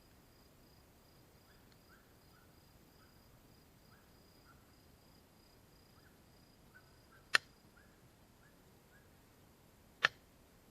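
Wood burning in a campfire, giving two sharp pops, one about two-thirds of the way through and one near the end, with soft ticking between. A faint, even, high-pitched insect chirp runs underneath.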